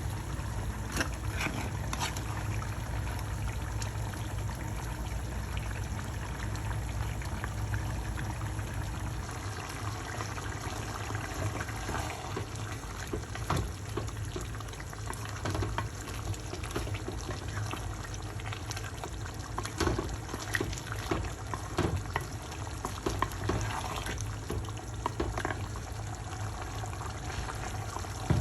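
Kitchen cooking sounds: a steady watery hiss with scattered clinks and knocks of utensils, over a low steady hum.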